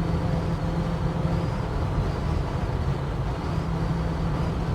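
Holden HK car cruising on the road: a steady engine drone with road noise.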